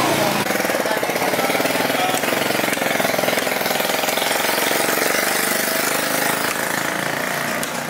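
A small engine running steadily close by, giving a fast, even pulsing rattle.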